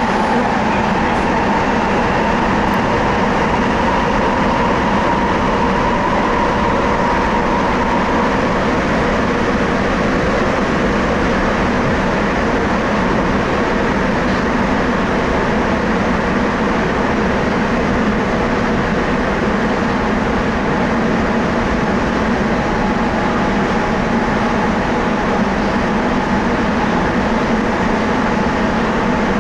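Rubber-tyred Sapporo subway train running at speed through a tunnel: a steady, loud rumble of the tyres on the guideway and of the car. A higher whine is heard for the first several seconds and then fades out.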